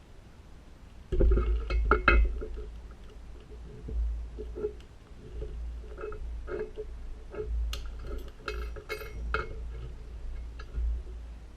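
Steel padlock being handled and worked with its key: irregular metallic clicks and clinks with dull thumps, a loud cluster about a second in, then scattered clicks.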